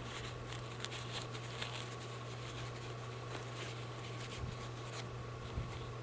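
Light scratchy rustling and handling of paper as a filter is fitted into a paper-towel face mask, with a few soft knocks, over a steady low hum.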